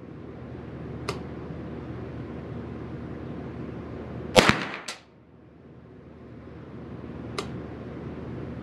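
Derya TM22 .22 LR semi-automatic rifle firing one shot about four and a half seconds in: a loud sharp crack with a short echo. Two much fainter sharp cracks come about a second in and near the end.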